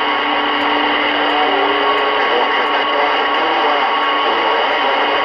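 CB radio receiver on an open channel, its speaker giving a loud, steady static hiss of band noise while listening for skip, with a few faint whistling tones coming and going.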